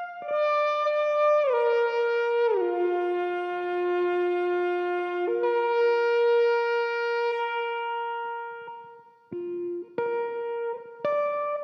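Electric guitar played to imitate a wind instrument: long held notes that slide down in pitch twice in the first few seconds, a long note that fades away about eight to nine seconds in, then a few short notes near the end.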